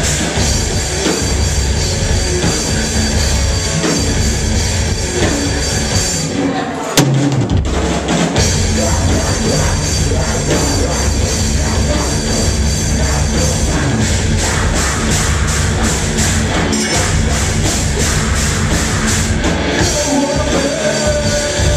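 Live rock band playing loud, with distorted guitars and a drum kit. The music breaks off for about a second a third of the way in, then comes back in.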